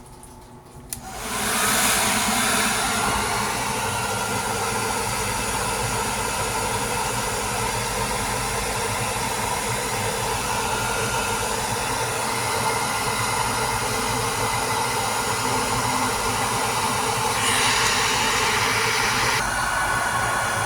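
Hair dryer switched on about a second in, then blowing steadily through a PVC pipe into a frosted-up refrigerator ice maker to melt the ice.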